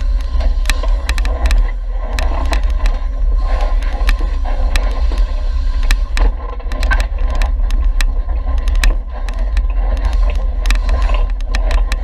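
An off-road vehicle crawling down a rocky trail, heard from a camera mounted on it: a steady low rumble with frequent sharp clicks and knocks.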